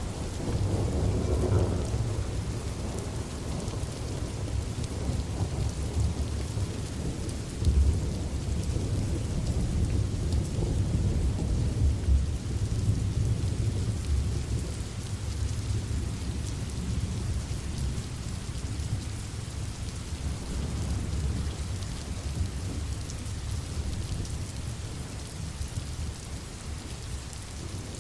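Steady rain with thunder rumbling low underneath, the rumble swelling briefly near the start and again about 8 and 12 seconds in.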